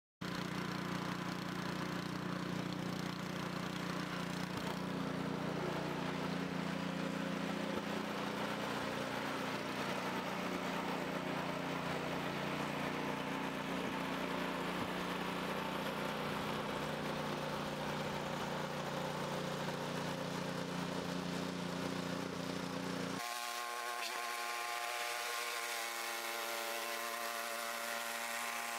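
Small engine running steadily at a constant speed. About 23 seconds in the sound cuts to a thinner, higher engine note with the low end gone.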